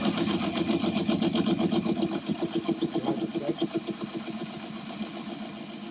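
Electric drill running with a fast, even pulsing hum, dropping in level after about four seconds.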